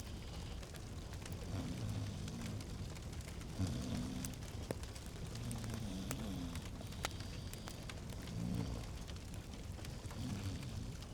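Log fire crackling in a fireplace, with scattered sharp pops over a steady low rumble and hiss.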